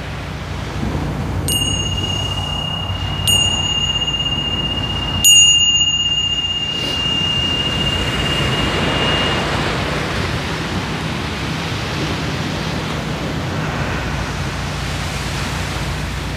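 A small bell struck three times about two seconds apart, ringing one high tone that carries on for several seconds after the third strike before fading out. Underneath is the steady rush of ocean surf and wind on the microphone.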